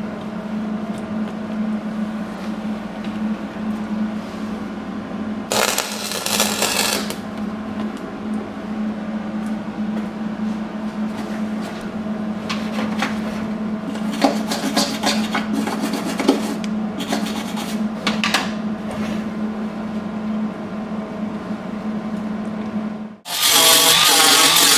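Steady low hum with intermittent short scraping and rubbing noises from work on the sheet metal. About a second and a half before the end, after a brief break, an angle grinder starts grinding down the welds on the steel inner fender, much louder and high-pitched.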